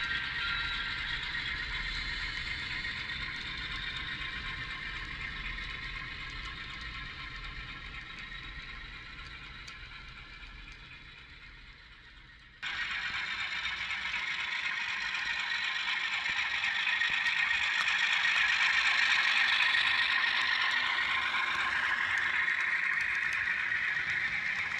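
HO scale model freight cars rolling over the track, a steady clattering rattle of small wheels on rails. It fades away for the first half, then cuts off abruptly and is replaced by a louder, closer clatter as cars roll right past.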